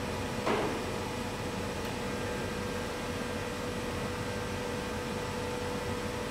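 Steady hiss and hum with a faint steady tone, from the small electric motor turning the sculpture's acrylic cylinder. A brief soft rustle about half a second in.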